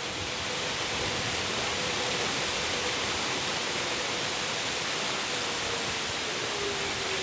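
Steady rush of heavy rain and wind. Under it a faint, distant tornado warning siren holds one tone, which slides lower near the end.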